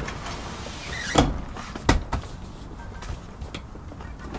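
Second-row seat back of a 1998 Toyota Land Cruiser 100 series being raised and latched upright: two clunks a little over a second in, less than a second apart, with a rustle of handling between them.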